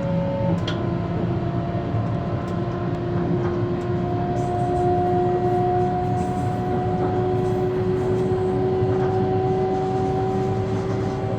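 Ride inside a moving bus: low rumble of the drive with a steady whine that drops in pitch less than a second in, then climbs slowly as the bus picks up speed.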